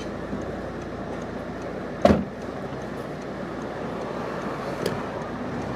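Steady street traffic noise, with a car door slammed shut once about two seconds in.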